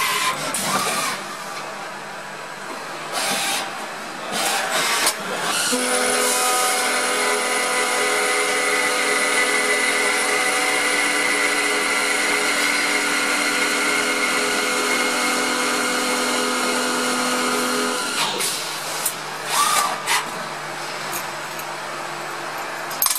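Spindle of a CNC screwdriver-bit making machine running with a steady whine of several tones for about twelve seconds while machining a long bit. Before and after it come shorter clicks and knocks of the machine moving.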